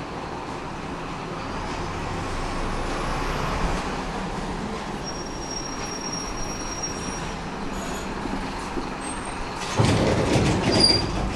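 Tram running along its rails, an even rumble of ride noise with a faint high whine over it. Near the end comes a louder, rougher burst of noise.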